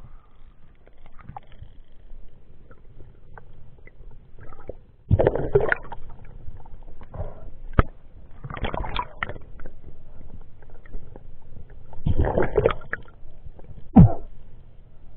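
Water sloshing and gurgling, muffled through an underwater action camera's housing, with three louder rushing surges about a second long each. A sharp click comes about eight seconds in and a loud knock near the end.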